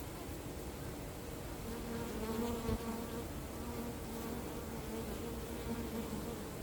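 Honeybee buzzing close by: a steady low hum that comes in about two seconds in, over a background hiss.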